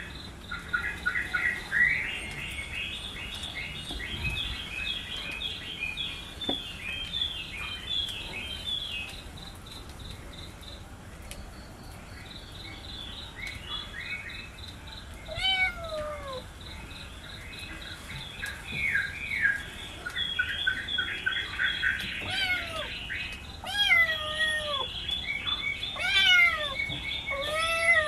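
Kittens meowing about five times in the second half, short calls that rise and fall in pitch, over busy, rapid bird chirping.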